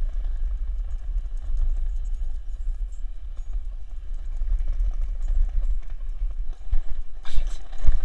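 Skateboard wheels rolling over brick pavers and stamped concrete: a steady low rumble with a rapid run of small clicks over the joints, and a louder clatter near the end.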